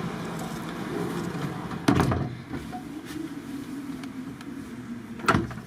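Steady outdoor hum from the ship and port, with sharp thuds about two seconds in and near the end as the sliding balcony door is handled and pulled shut. Once the door closes, the outside hum is cut off.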